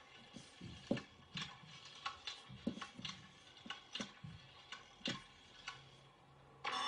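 Faint light clicks and ticks, a few a second at uneven spacing. Right at the end a loud phone ringtone cuts in.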